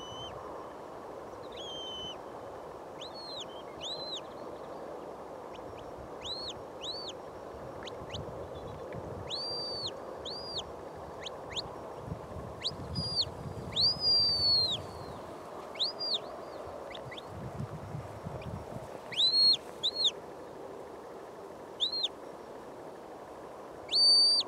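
Shepherd's whistle commands to a working sheepdog. The notes are short and rise and fall in pitch, often coming in pairs, with a longer held whistle in the middle and another near the end. Wind rumbles on the microphone at times.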